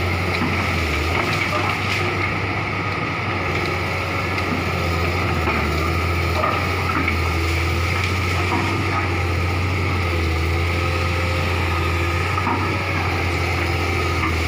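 Komatsu hydraulic excavator's diesel engine running steadily under load, a constant low hum with a few faint knocks from the work.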